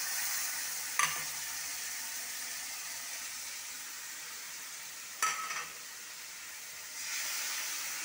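Tomato paste sizzling and hissing as it hits hot oil and fried spices in a metal kadhai. The hiss swells again near the end. Short metal clinks sound about a second in and again around five seconds.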